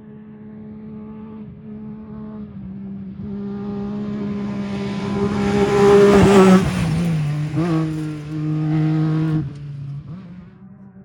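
Off-road race vehicle approaching and passing close by, its engine growing louder to a peak about six and a half seconds in, then dropping in pitch as it goes past and fading near the end, over a steady low hum.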